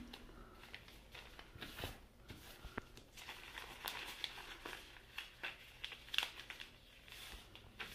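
Newspaper being folded and creased by hand: faint, irregular crinkling and rustling of paper with scattered sharp little crackles.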